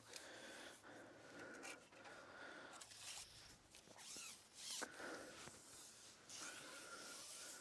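Faint rustling and scraping of a carbon fishing pole being handled and drawn back in, with a few soft knocks and clothing rustle.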